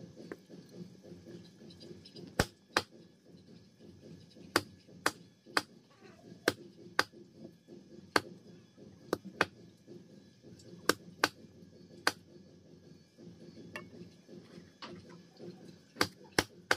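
A knife chopping a chicken into pieces on a wooden chopping block. The sharp chops come in uneven runs, often two about half a second apart, with a pause of a few seconds before a last pair near the end.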